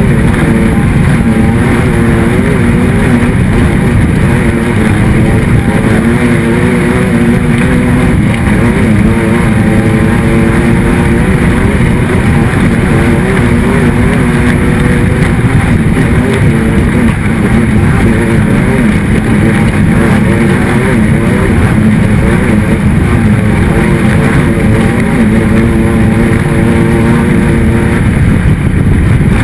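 A racing engine running hard and continuously, its pitch rising and falling as the driver works the throttle.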